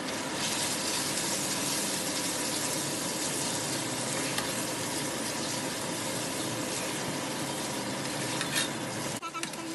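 Noodles, prawns and fishballs sizzling in sambal in a frying pan as a spatula stirs and tosses them: a steady frying hiss with soft stirring. The sound cuts out briefly near the end.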